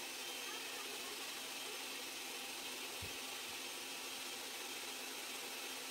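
Countertop blender running steadily at speed, mixing crepe batter. There is one soft low knock about three seconds in.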